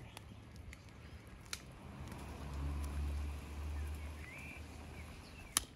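Quiet outdoor background: small birds chirping now and then, a low hum that swells for a second or so midway, and two sharp clicks, one about a second and a half in and one near the end.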